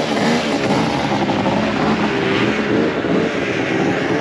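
Two-stroke snowmobile engine running as the sled pulls away, its pitch rising and falling with the throttle.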